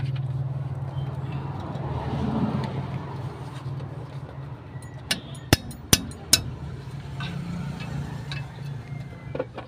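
Steel hand tools clinking against the front suspension parts, a quick run of about four sharp metallic clinks a little past the middle, over a steady low engine hum.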